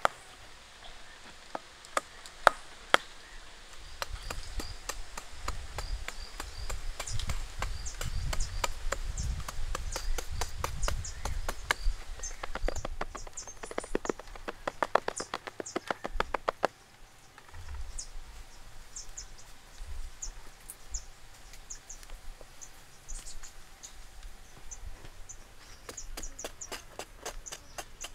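Dry soil being chopped and scraped with a small hand tool as a hole is dug. The strikes are repeated and sharp, with a fast run in the middle. Insects chirp high in the background.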